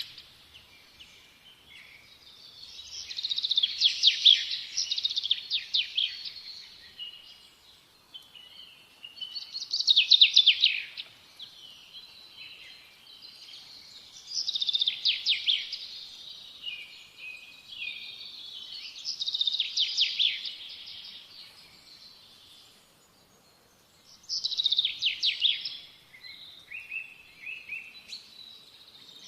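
Small songbird singing: short phrases of rapid high notes, repeated about every five seconds, with fainter chirps in between.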